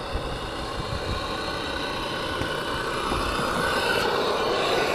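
Live-steam model speed boat's single-cylinder steam engine running, a steady mechanical sound that grows louder near the end as the boat comes in close.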